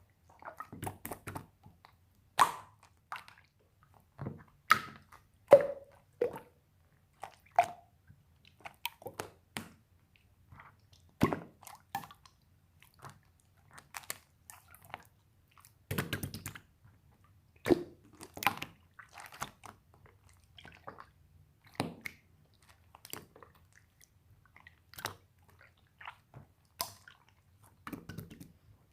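Slime being squished and pressed by hand, making irregular short wet clicks and popping sounds, some with a brief hollow pitch like air pockets bursting.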